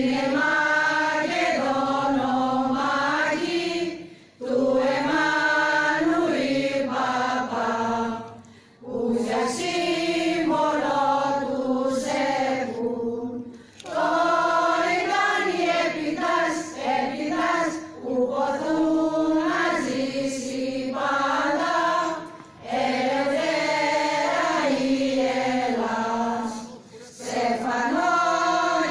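Choral singing in slow, sustained phrases, with brief pauses between phrases about every four to five seconds.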